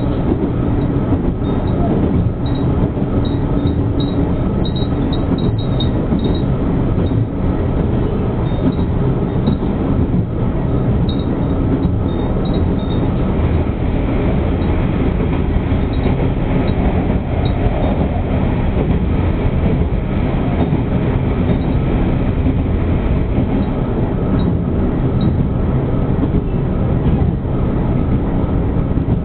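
Asa Kaigan Railway diesel railcar running along the line, heard from inside the passenger cabin: a steady mix of engine noise and wheels on the rails.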